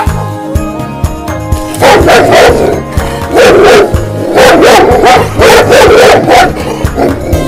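Dogs barking repeatedly in short bouts, starting about two seconds in, over background music with a steady beat.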